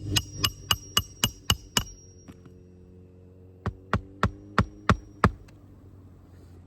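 Hand hammer driving roofing nails into a shingle: a quick run of about seven ringing strikes, a pause of about two seconds, then six more strikes.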